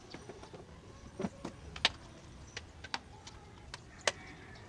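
Scattered sharp clicks and light knocks, about six spread irregularly, from hands unclipping and handling plastic and metal parts in a car engine bay.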